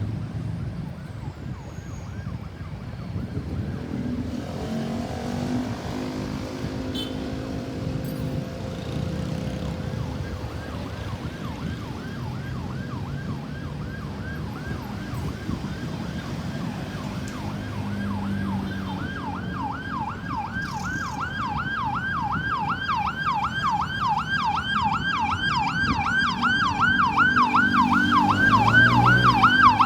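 Ambulance siren in a fast repeating rise-and-fall yelp, faint at first and growing steadily louder over the last ten seconds as the vehicle approaches, over the rumble of road traffic.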